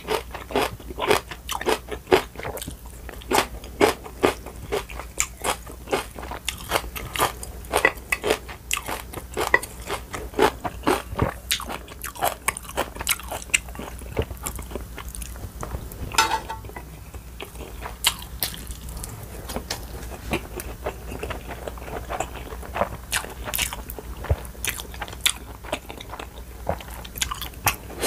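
Close-miked crunchy chewing and biting of kimchi: wet, irregular crunches, densest in the first half and thinning out later.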